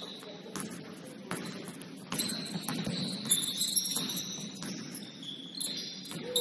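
Basketball shoes squeaking on a gym floor during play, several high squeals overlapping at slightly different pitches, with a few sharp thuds of the ball bouncing over a low murmur of the hall.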